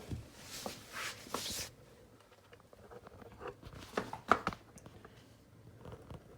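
Scraping and rustling of furniture parts being handled during hand assembly, followed about four seconds in by a few sharp clicks and taps, as of a screw and hardware being fitted.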